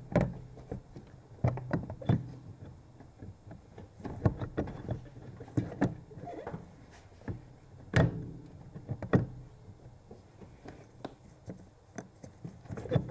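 Irregular knocks, clunks and clicks of metal parts being handled at the brake pedal bracket in the driver's footwell, as a brake booster is worked into place; the loudest knock comes about eight seconds in.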